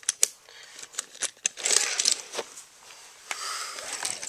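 Plastic TOMY toy engine and track being handled by hand: scattered sharp clicks and rattles with short bursts of rustling.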